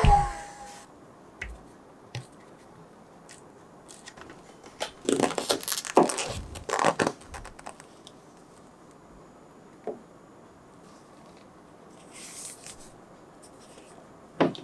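A heat gun's blowing dies away in the first second, then cotton-gloved hands handle a large soft vinyl figure: rustling and rubbing in a cluster of bursts in the middle, a few light clicks, and a sharp knock near the end.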